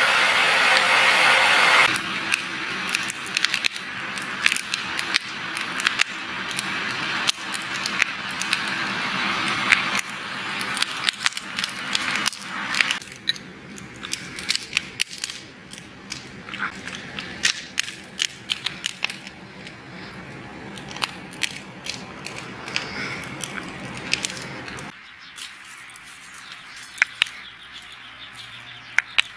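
A handheld blower hisses loudly into a wood fire for about two seconds and cuts off; afterwards the burning wood crackles with many sharp pops throughout.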